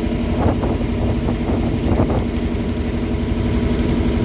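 River boat's engine running steadily with an even, droning tone.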